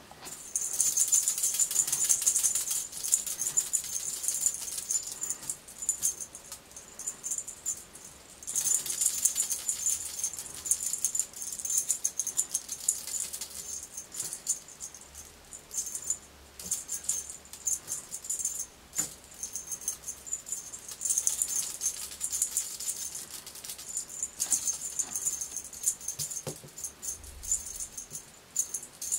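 A cat toy being shaken to catch a kitten's attention: a high, jingling rattle that comes in long bursts of several seconds with short lulls between.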